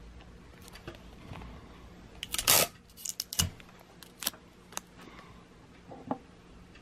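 Cellophane tape crackling and clicking as fingers press and handle a small polyhedron built from tape, with one louder crackle about two and a half seconds in and scattered light clicks after it.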